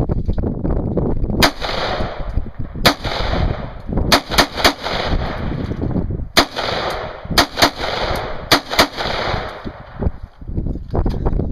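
Semi-automatic AR-15-style carbine firing about ten shots, some single and some in quick doubles and triples, each sharp crack followed by a ringing echo.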